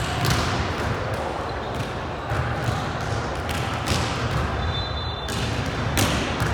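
Volleyball being played: several sharp smacks of the ball being hit or landing, over steady background crowd chatter.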